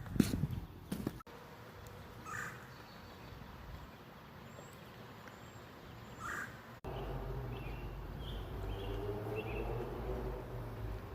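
Outdoor ambience with microphone handling knocks in the first second, a crow cawing twice, then, after an abrupt change, a steady low rumble with a slowly rising tone and a few faint high bird chirps.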